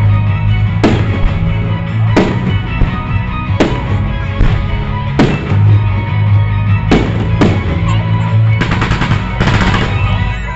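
Fireworks shells bursting with sharp bangs about every second and a half over loud show music with a heavy bass line. A dense run of crackling comes about nine seconds in.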